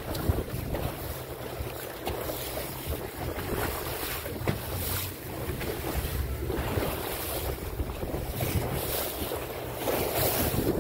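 Wind buffeting the microphone in gusts over the wash of seawater along a boat's hull.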